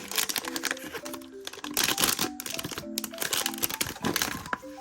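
Blind-box packaging crinkling and crackling with quick irregular clicks as it is handled and torn open, over soft background music.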